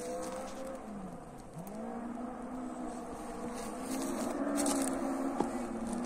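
Ford Escort Mk2 rally car's engine, heard at a distance while still out of sight, revving hard along a gravel stage. Its pitch dips about a second in, as the driver lifts or changes gear, then climbs again as it grows louder toward the end.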